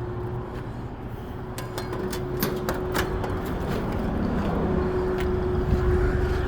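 Engine running steadily with a low rumble and a constant hum, with scattered light clicks and knocks over it.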